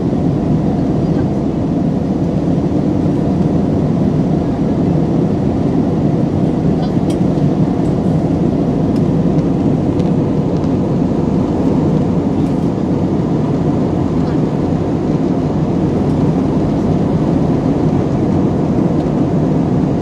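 Jet airliner cabin noise in cruise: engine and airflow noise heard through the fuselage as a loud, steady, low drone.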